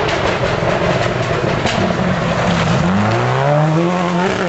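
Rally car engine at full throttle on a dirt stage, over the rushing noise of tyres on loose surface; the revs dip about halfway through, then climb steadily as the car accelerates through the corner.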